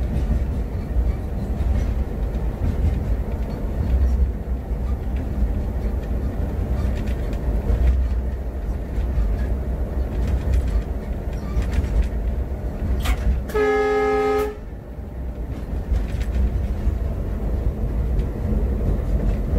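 Steady low rumble inside the cab of a WDG-3A diesel locomotive under way: its 16-cylinder ALCO diesel engine and the wheels on the track. About two-thirds of the way in, the locomotive's air horn sounds once for about a second.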